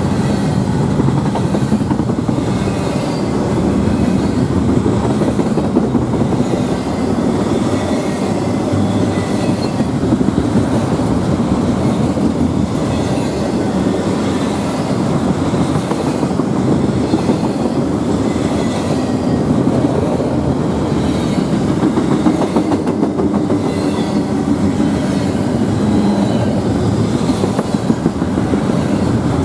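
Double-stack container freight cars rolling past: a steady rumble of steel wheels on the rails with continuous clickety-clack.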